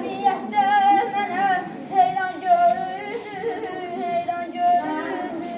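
A child's voice singing a slow song, with long held notes that waver in pitch.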